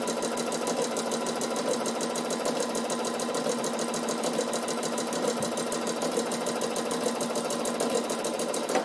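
Bernina sewing machine stitching at a steady speed with the Bernina Ruffler attachment, set to push in a tuck every sixth stitch, clattering in an even, rapid rhythm. It stops abruptly at the very end.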